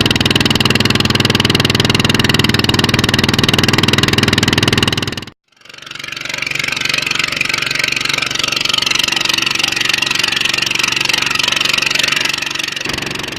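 Small boat engine running steadily under way. The sound cuts out abruptly about five seconds in, then returns with the engine fainter under a steady hiss.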